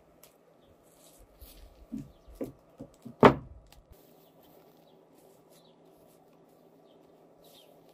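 A few light knocks, then one sharp loud knock a little over three seconds in, over a faint steady hum.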